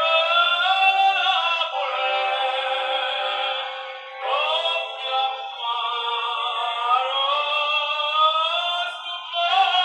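A tenor singing a Neapolitan song over musical accompaniment in long, held phrases, with two short breaks between phrases. The sound is thin, with no low end.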